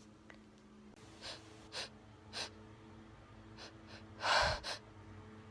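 A woman's faint sniffs and short breaths between sneezes: three quick sniffs, then a louder gasping breath about four seconds in, followed by another short one.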